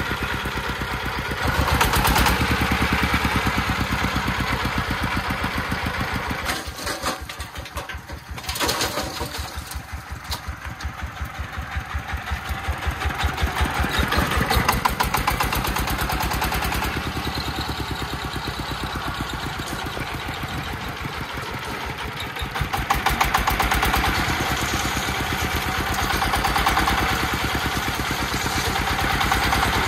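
Công nông tipper truck's single-cylinder diesel engine chugging with an even beat while the dump bed is raised to tip its load of soil. It eases off about a quarter of the way in, then picks up and revs again, with louder spells in the middle and later on.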